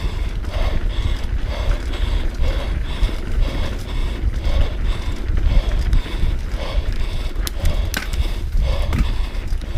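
Mountain bike running fast down a dirt trail: a steady low rumble of wind and tyres on dirt, with the bike's chain and frame rattling and a couple of sharp clacks over bumps near the end. The rider breathes hard, about once a second, worn out from the race run.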